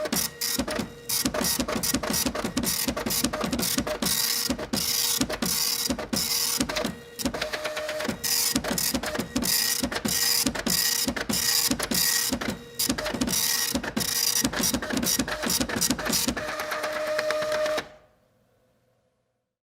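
Printer running through a print job: rapid mechanical clicking and rattling over a steady whirring hum. It stops about 18 seconds in, dying away quickly.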